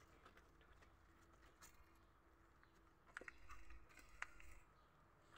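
Near silence, with a few faint clicks and a soft rustle about three to four seconds in.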